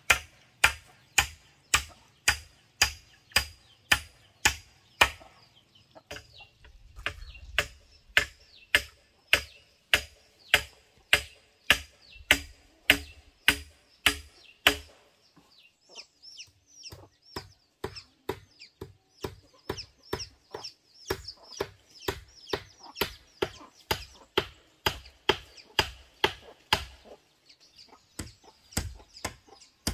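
Steady chopping at about two strikes a second, a blade cutting into bamboo, with the strikes lighter in the second half.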